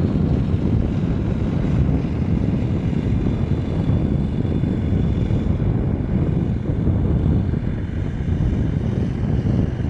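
Wind buffeting the microphone: a loud, steady low rumble that wavers constantly.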